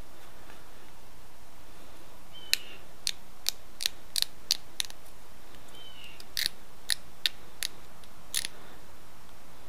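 Sharp, dry clicks as an antler tine pops small flakes off the edge of a stone arrowhead: about a dozen clicks, irregularly spaced, in two runs after a couple of seconds, with a faint short squeak of the tine on the stone twice.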